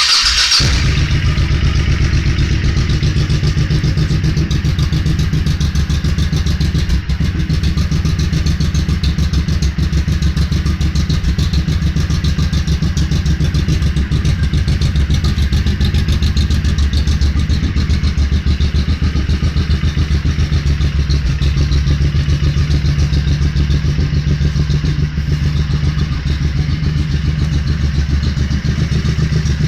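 Honda VT1100C Shadow Spirit's V-twin engine starting and then idling steadily with an even, pulsing beat through its stock exhaust pipes, whose baffles have been opened up with the hole-saw mod, the carburetors set half a turn richer.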